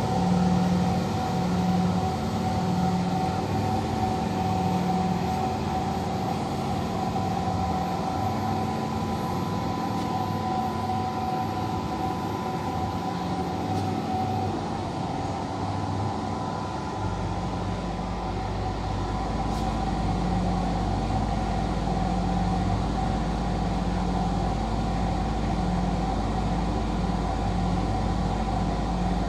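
Cruse CS 185 ST RD planetary scanner running through a scan: a steady machine hum with two held whining tones and a throbbing low hum. A deep low rumble joins a little past halfway.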